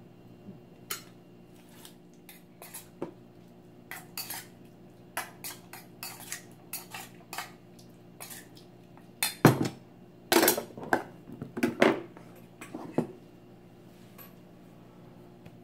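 Metal spoon clinking against a stainless steel bowl, with metal utensils handled and set down on a wooden board: scattered clinks and clanks, the loudest cluster about two-thirds of the way through. A faint steady low hum runs underneath.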